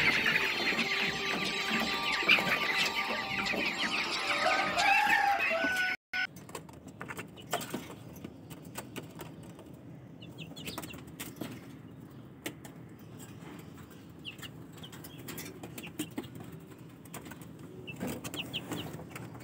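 A flock of Aseel chickens clucking and squawking together, a dense, busy chatter of many birds. About six seconds in, the sound cuts to a much quieter stretch of occasional clucks and rustling from caged birds.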